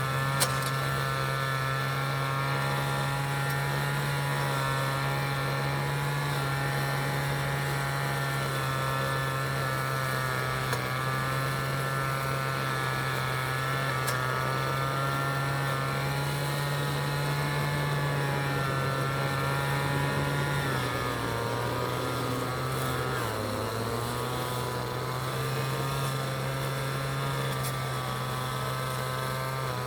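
City traffic ambience dominated by a steady, droning engine hum, which sags slightly in pitch about two-thirds of the way through. A sharp click just after the start.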